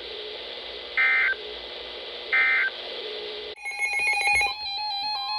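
NOAA Weather Radio sending the EAS end-of-message data bursts after a severe thunderstorm warning: two short, shrill two-tone buzzy bursts about a second and a half apart over steady receiver hiss. About three and a half seconds in, the hiss cuts off and a quick run of stepping electronic beep tones begins.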